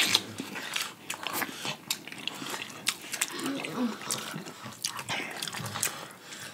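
Crab shells being cracked and bitten open, with chewing: an irregular scatter of sharp cracks, crunches and wet eating sounds.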